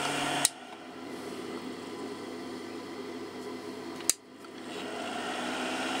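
Cooling fan of a 200 W grid-tie inverter humming, then cutting out with a sharp click about half a second in. A second click just after four seconds, after which the fan spins back up, the hum rising gradually; the fan has been freshly oiled and is still bedding in.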